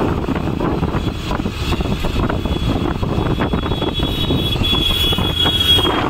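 Riding on a motorcycle at speed: a steady rush of wind on the microphone over the engine and road noise. A thin high whistle comes in and grows louder in the second half.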